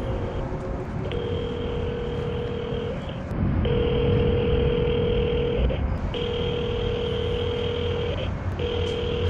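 Phone ringback tone from a call going unanswered: a two-pitched tone repeating about four times, each lasting roughly two seconds with short gaps, over a steady low rumble of background noise.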